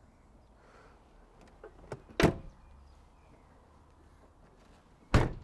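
The Range Rover's two-piece tailgate being shut: a lighter clunk about two seconds in, then a heavier slam near the end, with a few small clicks before the first clunk.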